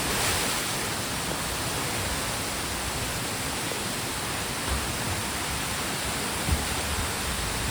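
Waterfall rushing, a steady even wash of falling water, with a couple of soft low bumps partway through.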